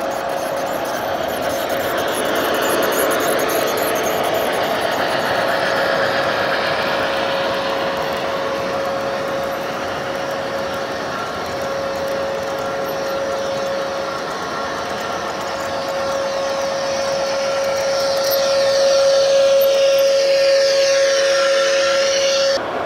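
Model trains running on the layout: a steady electric motor whine with the rumble of wheels on the track, growing louder as a passenger train passes close, then cutting off abruptly near the end.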